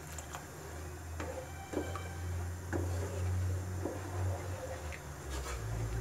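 Wooden spatula stirring thick curry gravy in a nonstick kadai, scraping the pan and knocking against it about once a second, over a steady low hum.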